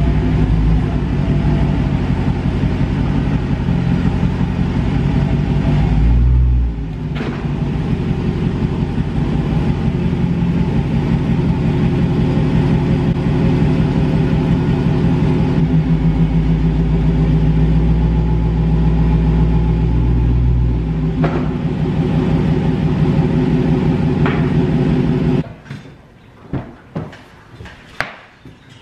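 Dodge Challenger Hellcat's supercharged 6.2-litre HEMI V8 running at low speed with light throttle as the car creeps up onto drive-on ramps. The engine shuts off suddenly near the end, followed by a few sharp clicks.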